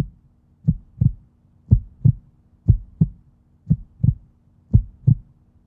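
Heartbeat sound effect: a steady double thump, lub-dub, about once a second.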